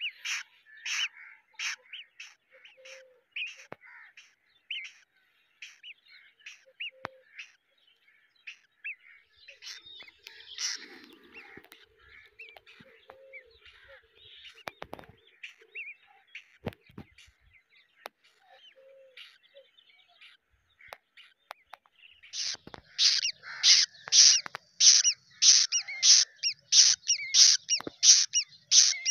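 Crow nestlings begging with short, high-pitched calls, about two a second. The calls are fairly loud for the first few seconds, faint and scattered through the middle, then loud and regular again over the last seven seconds.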